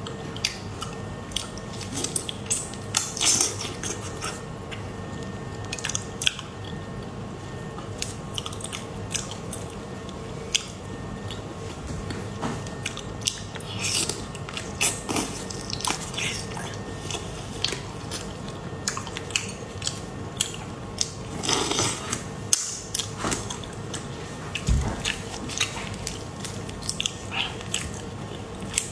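Close-miked eating of raw soy-marinated tiger prawns: wet biting and chewing, with irregular sharp smacks and crunches throughout.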